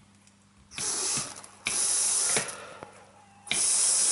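Aerosol throttle body cleaner hissing through a motorcycle fuel injector that is held open on battery power, as a final flush and spray-pattern check. It comes in three bursts, each starting abruptly. The last burst begins about three and a half seconds in, is the longest, and is still going at the end.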